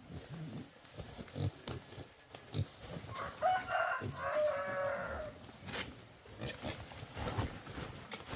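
A farm animal calling: one drawn-out, pitched call in two parts, about three seconds in, with light knocks and footsteps around it.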